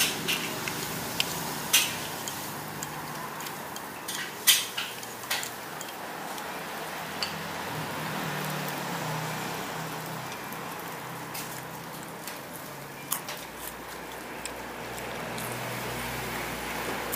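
Metal utensils clinking against dishes during eating: a few sharp, scattered clinks, most of them in the first six seconds, over a steady background hum.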